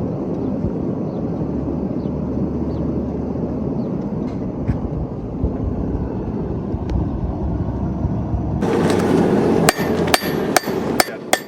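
A steady rushing roar from the forge, then near the end a quick run of about five sharp hammer blows on steel, ringing.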